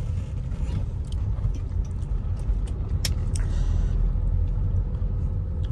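Moving vehicle: a steady low engine and road rumble, with a couple of short sharp clicks about three seconds in.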